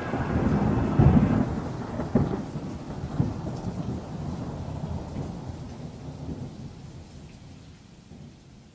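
Rolling thunder, with a couple of sharper cracks in the first two seconds, then a long rumble that slowly dies away.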